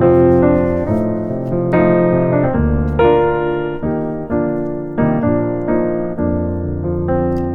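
Background music: slow, gentle solo piano, with notes and chords struck about once or twice a second and left to ring out.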